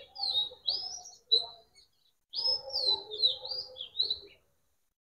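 A bird singing: two phrases of quick, rising and falling chirping notes. The second phrase starts a little over two seconds in, and the sound cuts off short of the end.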